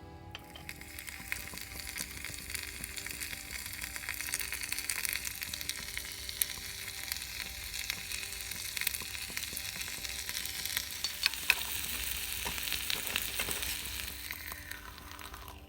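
Food frying in hot oil in a tiny pan: a steady sizzle full of small crackles and pops. It builds over the first couple of seconds and cuts off abruptly at the end.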